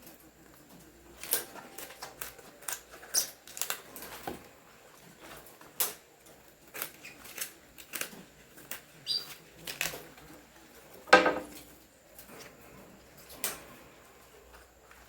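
Kitchen knife chopping collard greens on a cutting board: irregular sharp taps, about one or two a second. One brief, louder animal call sounds about eleven seconds in.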